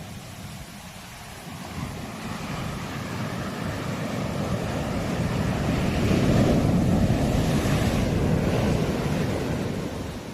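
Sea waves breaking on the shore: a rush of surf that builds over several seconds, peaks past the middle, then dies away, with wind on the microphone.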